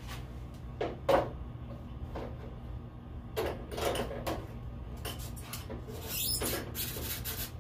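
Plastic bug deflector visor being handled and pressed against the front edge of a car hood. Two sharp knocks come about a second in, then plastic rubs and scrapes against the hood edge in the second half, over a steady low hum.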